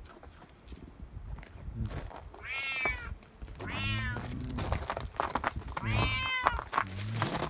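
Tabby cat meowing three times, each call rising and then falling in pitch.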